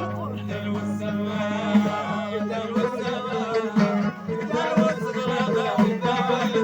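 Live Moroccan folk music: a plucked string instrument playing a quick melody, with singing over it.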